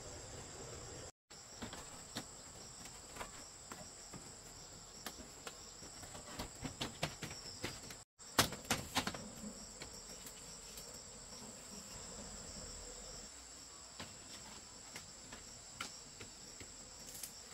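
Steady high-pitched chorus of crickets or other insects, with scattered light knocks and clicks, a few in quick clusters about six and nine seconds in. The sound drops out briefly twice.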